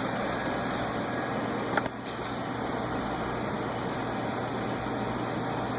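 Steady background hum and hiss, with one short sharp click about two seconds in.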